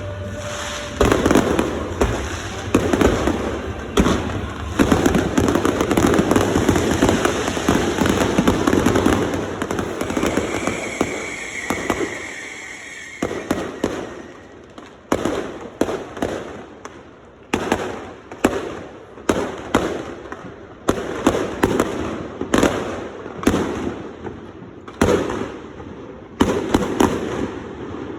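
Fireworks display: a dense barrage of overlapping bangs and crackle, thinning about halfway through into separate sharp bangs roughly a second apart.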